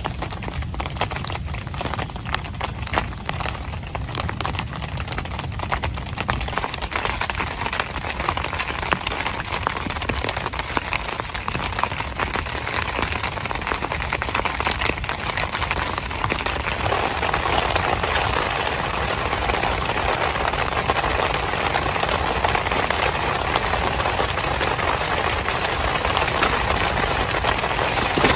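Heavy rain falling on a tent: a dense hiss full of sharp individual drop hits, getting louder about halfway through.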